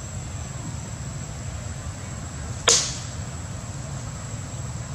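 A single sharp snap-like impact about two and a half seconds in, over steady background noise and a constant faint high-pitched whine.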